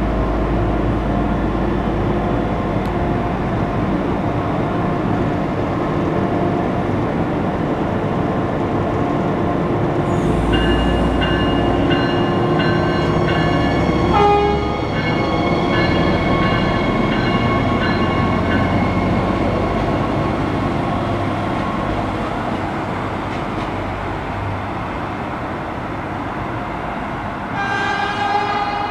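Stadler GTW diesel multiple unit pulling out and moving away, its diesel engines running steadily. A ringing repeats about twice a second for several seconds in the middle, the horn sounds briefly about halfway through, and another horn blast comes near the end.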